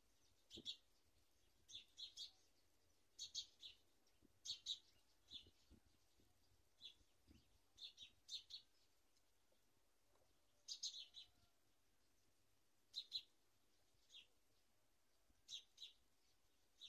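Bird chirping: short, high chirps, often in quick twos or threes, repeating about once a second with a short pause past the middle.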